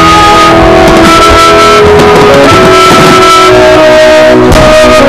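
Loud music with held notes that change pitch every second or so.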